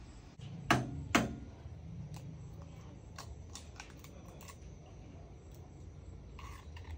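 Two sharp clanks about a second in, then a run of small, light ticks of eggshell being cracked and picked off by hand.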